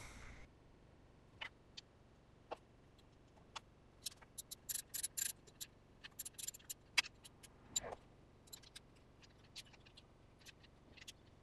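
Sharp metallic clicks of a hand ratchet and socket running down the fastening nuts on an air-cooled VW engine's oil pump cover. The clicks come scattered, with a quicker run of them about four to five seconds in and a duller knock near eight seconds.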